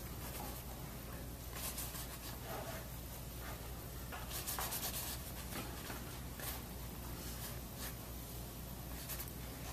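Oil-paint brush rubbing and dabbing across a canvas in a series of short, faint, scratchy strokes, over a low steady room hum.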